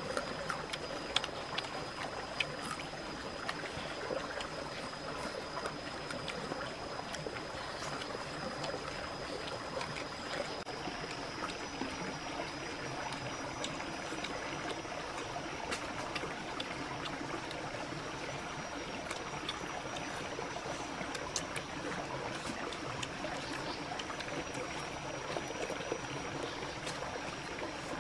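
Steady rushing trickle of a stream, with a thin, steady high whine over it that steps slightly higher about eleven seconds in, and scattered faint clicks.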